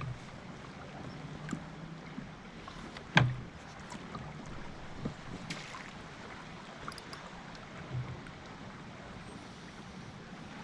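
Faint steady wind and water noise around a kayak, with one sharp knock about three seconds in and a few lighter clicks.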